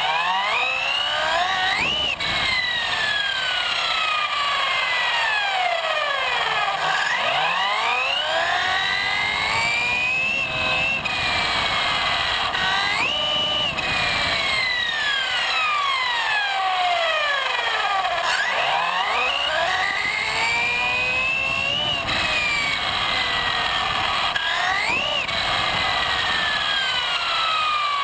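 Brushless motor and drivetrain of an XRAY XB808E electric 1/8 buggy on a 6S LiPo, with a Castle Mamba Monster 2200kV system, whining up in pitch under throttle and falling back as it slows, again and again, over a steady hiss of tyres on asphalt.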